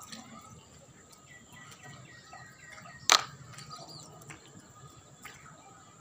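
A single sharp clack of hard plastic toy animal figures knocking together as they are handled, about three seconds in. Faint bird chirping in the background.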